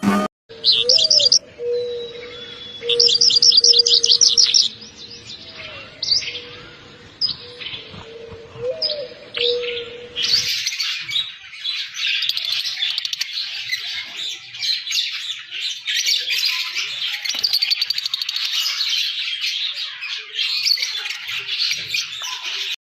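Birds singing and calling. Repeated fast high trills and short rising calls sound over a steady low tone, then from about ten seconds in a dense chorus of many birds chirping at once.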